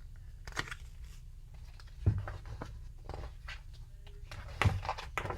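Quiet handling noise from a picture book being held: soft paper rustles and a few light knocks, the strongest about two seconds in and again near the end.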